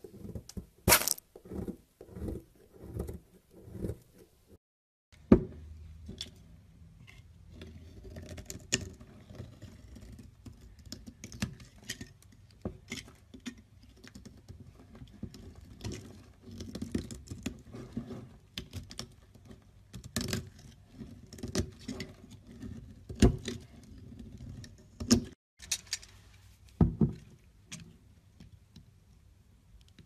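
Knife blades carving bars of soap. Dry, crumbly soap crackles and breaks apart under the blade, and firmer soap is sliced and shaved, with scattered sharp cracks as pieces snap off.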